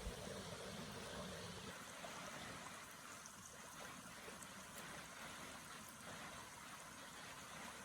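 Small spring-fed mountain creek trickling faintly, a steady, even wash of water.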